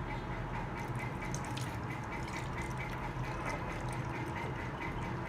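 Water being poured into a hard handwash refill container, filling it toward the 200 ml mark in a steady stream.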